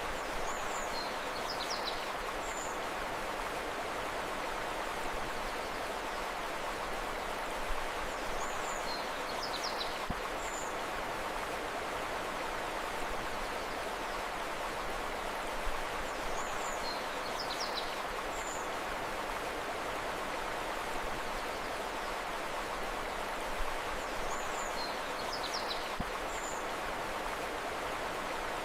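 Steady rushing of a flowing river. A short burst of high bird chirps comes back four times, about every eight seconds.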